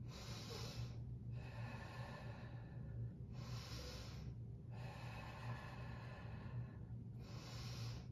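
A woman breathing slowly and audibly, long breaths in and out through a few cycles with short pauses between them, while she holds a bent-knee yoga chair pose. A steady low hum runs underneath.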